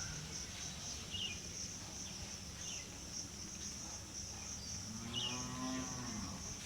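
Insects chirring in a steady, evenly pulsing high drone, with a few short bird chirps and a low drawn-out call about five seconds in.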